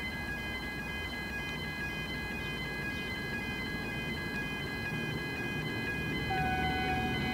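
V/Line VLocity diesel multiple unit approaching, its low rumble growing louder about six seconds in. Over it runs a steady high ringing of several tones that repeats about three times a second, like a warning signal.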